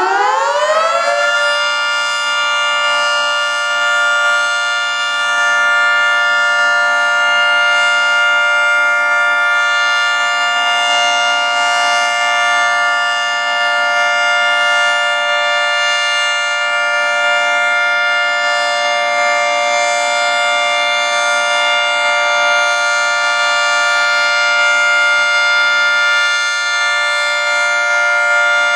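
Federal Signal 3T22 omni-directional three-tone outdoor warning siren sounding its steady alert signal. Its pitch finishes winding up in the first second or so, then it holds a loud, steady chord.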